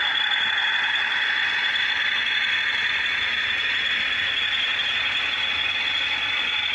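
OO gauge model goods train rolling past: a steady mechanical whirr and rattle of the model's wheels and drive on the track, with a steady high whine over it.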